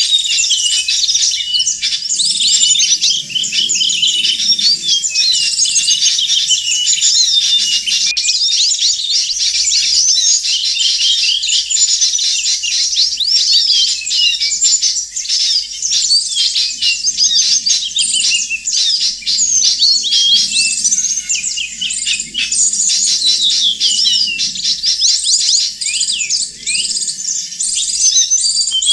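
A dense chorus of many small songbirds twittering and chirping without pause, calls overlapping in quick high sweeps: a bird-trapping lure recording.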